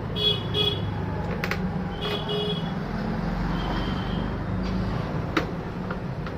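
Background road traffic with a steady low hum and several short vehicle-horn toots, with a few sharp clicks, the loudest about five seconds in.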